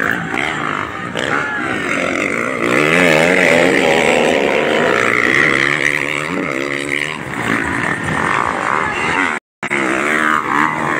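Motocross dirt bikes' engines revving up and down as several bikes race past on the track. The sound cuts out for a moment near the end.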